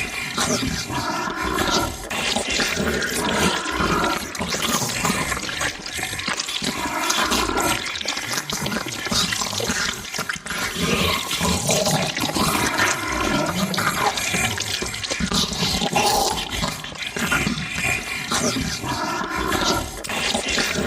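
Monster-eating sound effect: continuous wet, sloppy gurgling and slurping, with a pitched gurgle coming back every few seconds.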